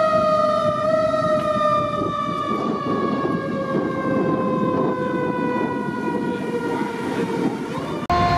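Fire engine siren sounding one long, steady wail that slowly falls in pitch, with engine and road noise underneath. It cuts off abruptly near the end.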